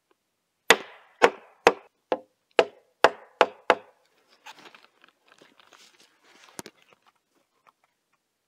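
Hammer striking the foot of a wooden post, eight sharp knocks at about two to three a second, to nudge the post on its stone footing into plumb. Then softer rustling and scraping, with one lighter knock.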